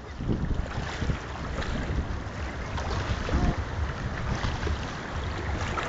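Gusty wind buffeting the microphone, an uneven low rumble, with water lapping and splashing faintly underneath.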